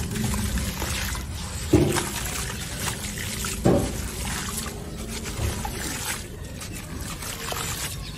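Hands crushing dry, gritty crumbly chunks over a basin of water: a continuous grainy crunching and trickle of falling grit, with two louder plops about two and four seconds in as bits drop into the water.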